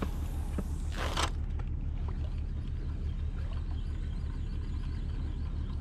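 Steady low wind rumble buffeting the microphone, with a short rushing whoosh about a second in.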